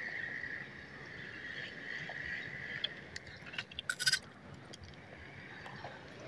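Frogs calling in a steady high chorus that fades about three seconds in. A few light clicks and a short rattle from the spinning reel and rod being handled about four seconds in.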